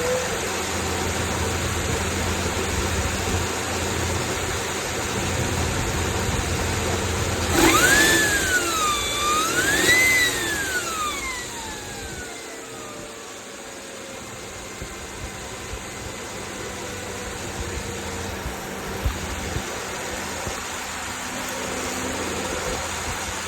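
2012 Toyota Camry 2.5-litre four-cylinder engine running. About eight seconds in it is blipped twice, and a high whine rises and falls with each blip, then slides slowly down in pitch as the revs settle. The whine is typical of a failing alternator.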